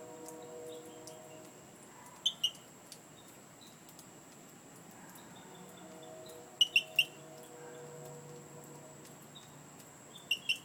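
Short, sharp, high-pitched calls from an unidentified animal in a tree, somewhat frog-like. They come in quick clusters of two or three: twice, then three times, then twice again near the end.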